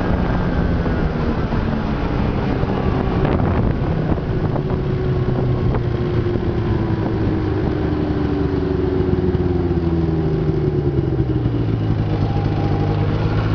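Snowmobile engine running while under way. Its note slides down over several seconds in the second half and settles lower near the end.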